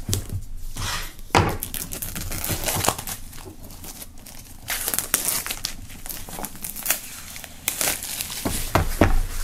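Clear plastic shrink-wrap film crinkling in irregular crackles as it is pulled off a cardboard box by hand.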